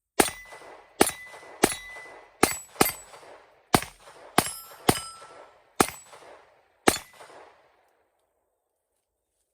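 Ruger LCP II .22 LR pistol firing ten shots of CCI Mini-Mag 36-grain hollow points at an uneven pace, each a sharp crack, several followed by a short ringing tone. The pistol cycles and fires each round in turn.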